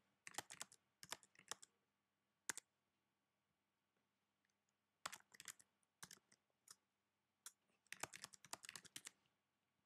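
Faint keystrokes on a computer keyboard, typed in short bursts with pauses of a second or two between them, as a password is entered.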